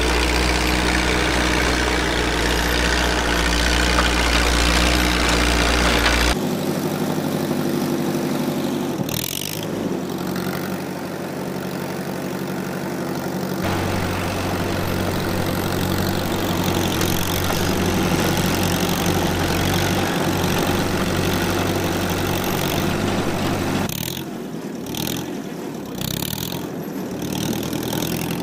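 Fiat 352C Montagna crawler tractor's four-cylinder diesel engine running steadily under load while driving a rear rotary tiller through the soil.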